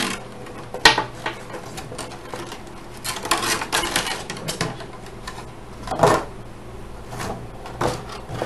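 A cardboard mouse box and its plastic inner packaging being handled and pulled apart: rustling with scattered clicks and knocks, the sharpest click about a second in and another knock around six seconds in.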